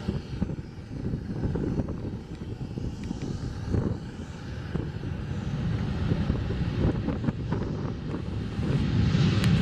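Jet airliner engines rumbling as the plane comes in to land, growing louder toward the end with a rising hiss.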